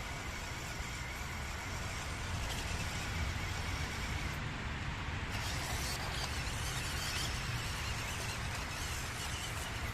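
1/16-scale WPL C24K RC truck's stock 180 brushed motor and gearbox running steadily as the truck struggles for traction, mixed with a steady low rumble of outdoor noise.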